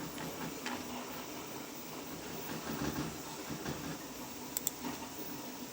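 Steady low mechanical hum and hiss from machinery running, with two faint clicks about four and a half seconds in.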